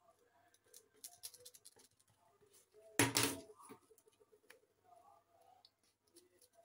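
Faint handling sounds of craftwork: light clicks and rustles as satin ribbon is pressed and glued onto a cardboard shuttlecock tube, with one louder knock about three seconds in.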